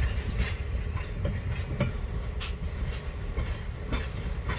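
Vintage passenger coaches rolling slowly away over jointed track, the wheels giving irregular clicks and knocks over a low steady rumble.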